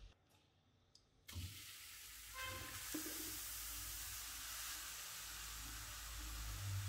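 Grated carrots sizzling in hot ghee in a wok. The steady hiss starts suddenly about a second in and carries on as the carrots are stirred.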